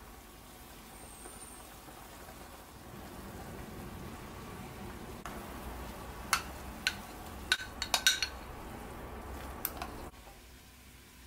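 A pot of pork ribs at a full rolling boil, a steady bubbling hiss. From about six seconds in comes a run of sharp clinks, a spoon knocking and scraping against a glass bowl as thick chilli sauce is scraped into the pot; the sound drops away suddenly near the end.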